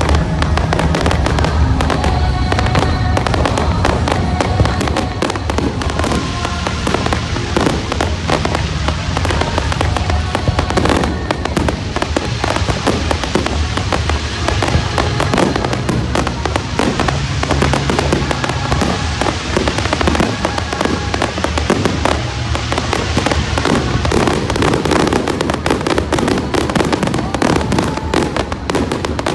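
Fireworks display: a continuous dense crackle of many quick bursts from sparking fountains and aerial shells, with music playing along underneath.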